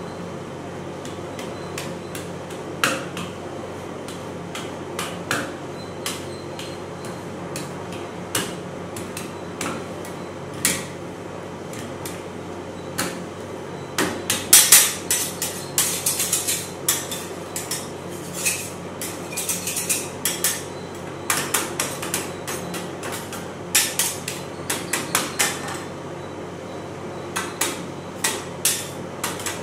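Metal ice-cream spatulas tapping and scraping on a frozen metal cold plate while ice cream is worked into a flat sheet: sharp clicks, scattered at first, then coming in quick runs from about halfway on.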